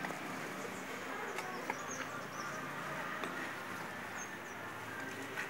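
Hands kneading and squeezing grated coconut in a clay bowl to press out coconut milk, with a few faint clicks, over a steady background buzz.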